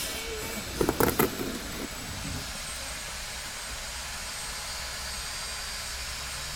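A few sharp clicks from pliers handling wire, clustered about a second in, over a steady background hiss.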